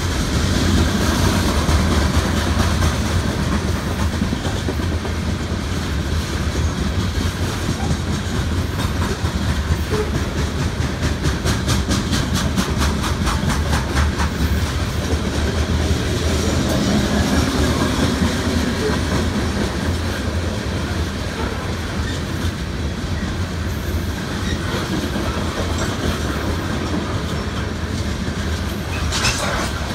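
Freight train of open coal hopper cars rolling steadily past, a continuous low rumble with the clickety-clack of steel wheels over the rail joints. A run of rapid, regular clicking comes about midway, and a brief sharp sound comes near the end.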